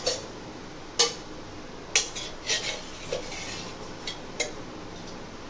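A handful of sharp metal clinks from a kadai (wok-style cooking pan), spaced a second or so apart, over a steady faint hiss.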